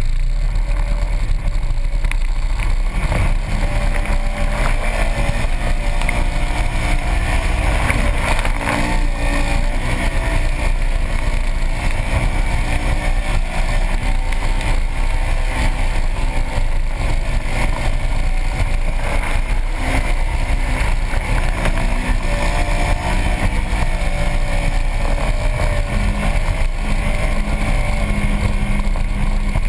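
Polaris RZR XP 900 side-by-side's 875 cc twin-cylinder engine running hard while driving, its revs rising and falling.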